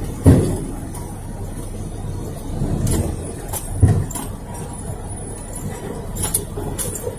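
Truck's diesel engine running steadily while the end-dump trailer's telescopic hydraulic hoist raises the bed. Two heavy thumps, one just after the start and one about four seconds in.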